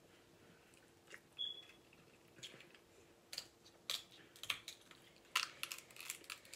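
Faint, scattered clicks and cracks of king crab shells being broken and picked apart by hand, about one or two a second, with one brief high squeak about a second and a half in.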